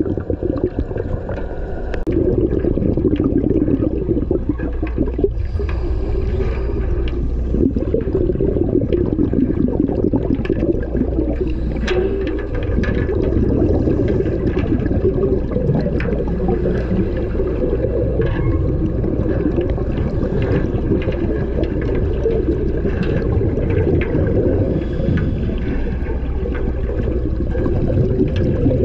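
Underwater sound picked up by a camera inside a shark cage: a steady low rumble and bubbling wash from the divers' air, with scattered small clicks.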